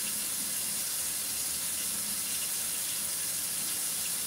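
A steady, even hiss with no change in level, like a tap left running.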